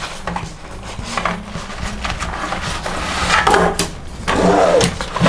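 Folded aluminium-alloy legs of a Naturehike folding table clinking and knocking together as they are pushed into a nylon carry bag, with scraping and fabric rustling. The rustle is densest about three seconds in.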